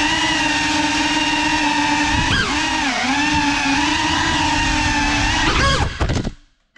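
Cinelog 35 cinewhoop's ducted propellers and motors in flight: a steady multi-tone whine that dips in pitch twice around two to three seconds in and rises near the end, then cuts off suddenly.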